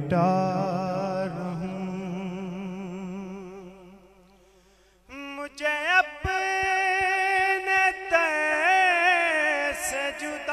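Male naat reciter singing an Urdu devotional kalam through a microphone. A long held note with vibrato fades away over about four seconds. After a short gap, about five seconds in, a new line begins with ornamented, wavering notes.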